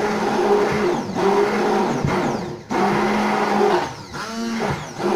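Braun immersion hand blender running in a plastic beaker, its blade churning carrots, milk and ice into a smoothie. The motor hum runs in pulses, slackening briefly about two seconds in and again about four seconds in before picking up speed again.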